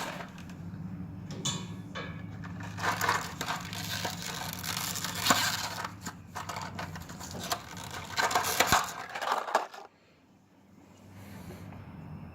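Close-up handling noise of small hand tools and wire: an irregular run of scratchy clicks and crackles over a steady low hum, which breaks off suddenly about ten seconds in.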